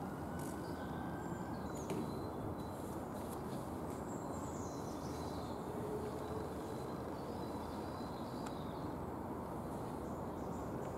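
Steady low outdoor background noise with small birds chirping now and then, most of the chirps in the first half.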